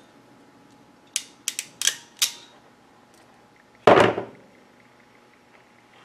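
Ratcheting crimp tool closing on a servo connector pin: five sharp ratchet clicks in quick succession as the handles are squeezed. Then one louder clack about four seconds in.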